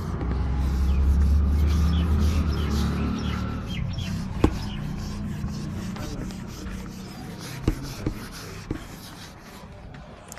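Whiteboard eraser rubbing across a whiteboard, wiping off marker writing. The rubbing is loudest in the first few seconds and fades after that. A few sharp knocks come in the second half.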